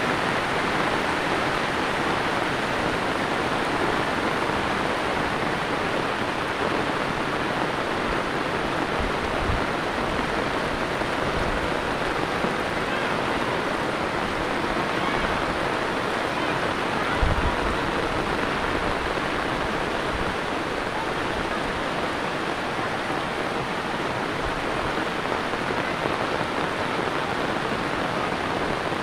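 Heavy tropical rain falling steadily on the road and roofs, an even hiss with runoff water running. A few dull low thumps break through, the loudest about seventeen seconds in.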